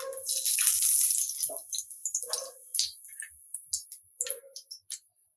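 Bay leaves and whole spices dropped into hot oil in a kadhai: a burst of sizzling that fades over about two seconds into scattered crackles and pops.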